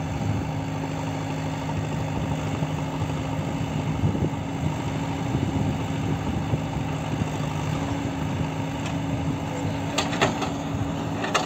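JCB 3DX backhoe loader's diesel engine running steadily as it digs and swings a load, with a clatter about ten seconds in as a bucketful of soil drops into a steel tipper truck body, and another knock just before the end.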